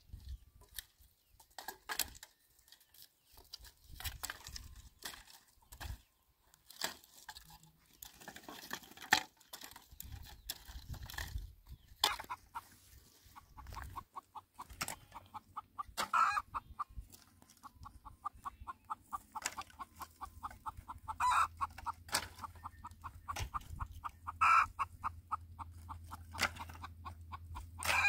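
Dry branches knocked and snapped as firewood is handled and stacked. From about halfway, a chicken clucks in fast, even runs, with a few louder calls.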